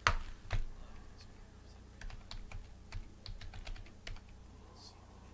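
Typing on a computer keyboard: two sharp clicks at the start, then a quick, irregular run of key clicks in the middle.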